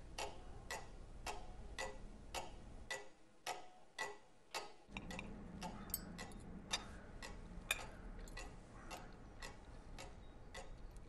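Cuckoo clock ticking faintly, about two ticks a second. A faint low hum joins about five seconds in.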